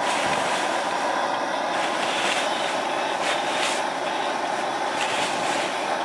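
Strong wind blowing steadily across the snow cave's entrance, with a few brief scrapes of a snow shovel digging out drifted snow.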